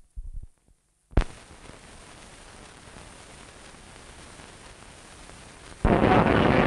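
Steady hiss of an old newsreel soundtrack, set off by a sharp click about a second in. Near the end a much louder sound cuts in abruptly.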